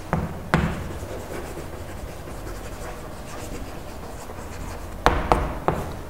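Chalk writing on a blackboard, with a few sharp taps of the chalk against the board about half a second in and again three times near the end, and quiet scratching between.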